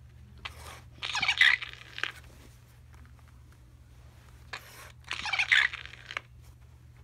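Talking Steve Urkel doll playing its recorded voice phrases, twice: a short phrase about a second in and another about five seconds in.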